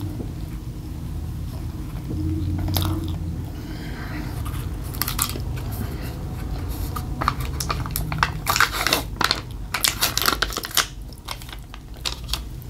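A person biting and chewing crunchy food close to the microphone, the crunching thickest through the second half, over a steady low hum.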